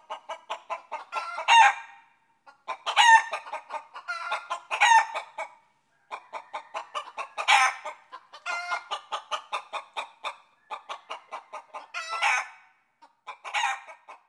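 Chicken clucking: repeated runs of quick clucks, each ending in a louder drawn-out squawk, about seven runs in all.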